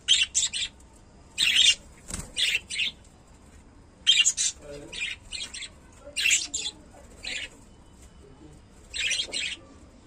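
Budgerigars chirping in short, sharp, high calls that come in quick clusters of two to four every second or two, with brief pauses between.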